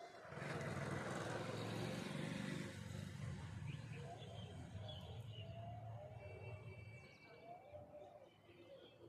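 A motor vehicle passes close by: a rumbling engine and hissing road noise come up suddenly just after the start, then fade away over about seven seconds. Small birds keep chirping throughout.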